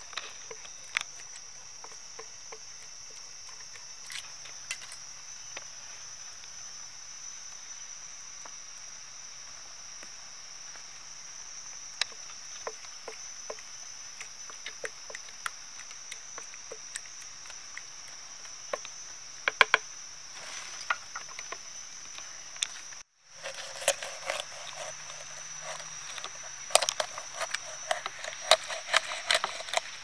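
Wooden pestle knocking and mashing a wet spice mixture in a stainless steel bowl, in irregular strokes, over a steady high-pitched insect drone. After a brief break about 23 seconds in, quicker clicks and handling sounds come as a knife works on a raw whole chicken.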